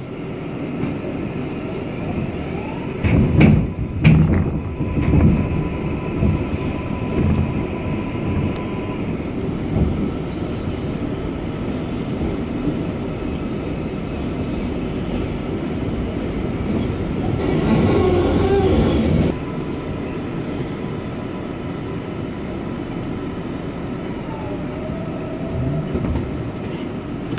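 Subway train running through a station, heard from inside the car: steady rumble of wheels on the rails with several heavy knocks about three to five seconds in, and faint squeals from the wheels. The running grows louder past the middle, then drops off suddenly.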